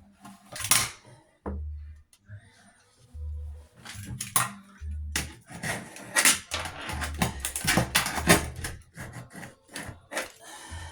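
A hand tool scraping and prying at old caulk along a bathroom sink top, in irregular rasping strokes with sharp knocks.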